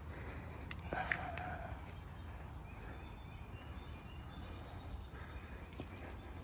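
Outdoor ambience: a steady low rumble with faint bird chirps, and a single knock about a second in.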